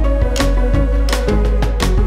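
Upbeat background music with pitched notes over a steady bass and a strong drum hit about every 0.7 seconds.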